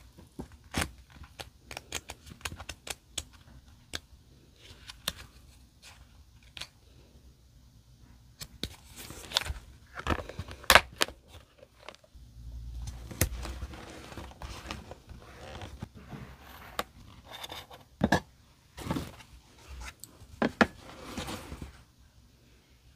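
Paper stickers handled close to the microphone. First a run of light clicks and taps as a stack of cut-out stickers is flipped through, then louder paper rustling and scraping around the middle and near the end as a sticker is peeled and pressed onto a journal page.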